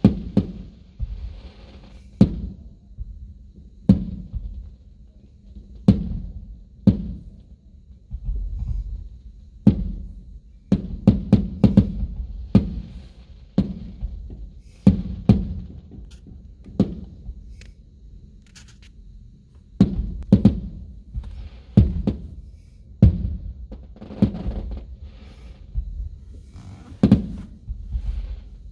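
Aerial fireworks bursting: a steady run of deep booms and sharp bangs, at times several in quick succession.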